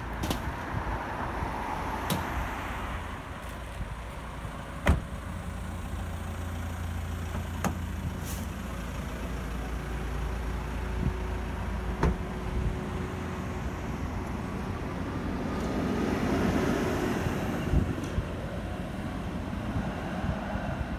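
Street traffic: a steady low hum of road vehicles, with one vehicle swelling past about sixteen seconds in, and a few scattered sharp clicks.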